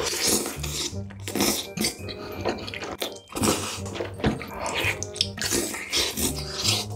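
Close-up wet chewing, slurping and lip smacks of a person eating stretchy melted cheese and fried food. Background music with low bass notes plays underneath.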